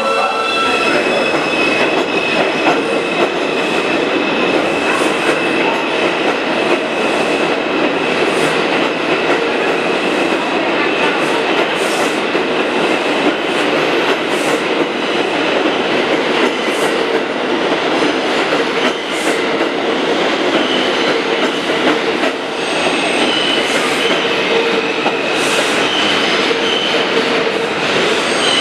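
R142 subway train pulling out of the station, a loud steady rattle of steel wheels on rail with two steady tones running under it and brief high squeaks from the wheels every couple of seconds.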